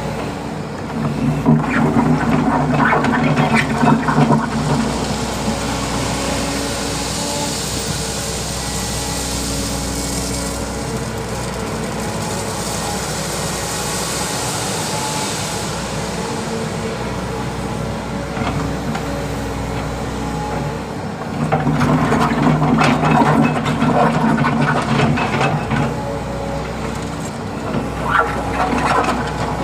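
Volvo EC200D excavator's diesel engine running steadily, working harder twice: for a few seconds about a second in, and again about two-thirds of the way through, with a hiss in between.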